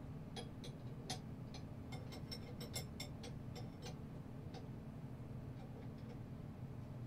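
Small metallic clicks and clinks, quick and dense for the first four seconds and then sparse: wrenches working the collet nut on a 3018 CNC router's spindle while a 1 mm ball-nose bit is tightened in. A low steady hum runs underneath.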